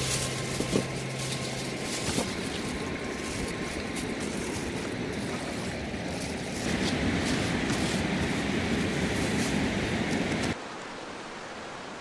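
Aluminium foil crinkling and rustling as it is folded into a parcel, over the steady rush of a mountain river. About ten and a half seconds in it cuts off, leaving only a quieter, even river rush.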